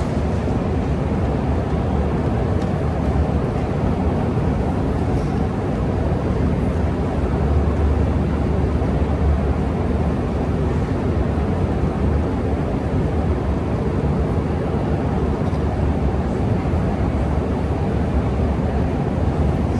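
Steady low rumble of a long metro escalator running, its machinery and moving steps humming on without change.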